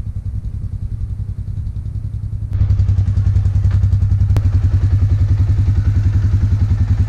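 Can-Am Outlander 400 ATV's single-cylinder engine idling with a steady, rapid low pulse, getting louder about two and a half seconds in.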